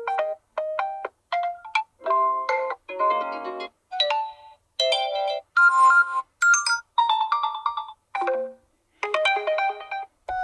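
OPPO A1K's built-in message alert tones previewed one after another: a dozen or so short melodic chimes, each cut off after under a second by the next.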